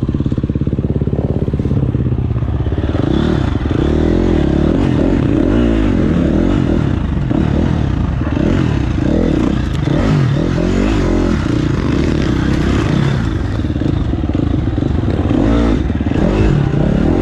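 Dirt bike engine being ridden, its pitch rising and falling again and again with the throttle.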